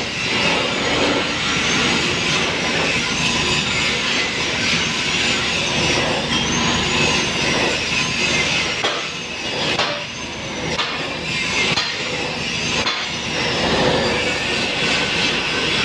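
Angle grinder grinding the weld joint of a steel pipe: a continuous harsh grinding noise with a high whine that rises and falls about once a second as the disc is worked along the joint.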